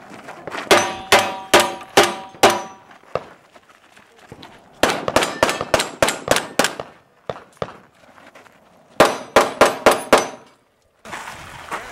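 Steel targets ringing as they are hit in rapid strings: five sharp clangs about a second in, a fast run of about ten in the middle, and six more near the end, each hit leaving a short metallic ring.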